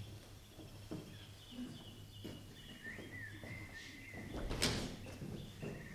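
Footsteps knocking on a wooden stage floor as an actor walks off, a few steps about a second apart with one sharper knock about two-thirds of the way through, over a faint thin high tone.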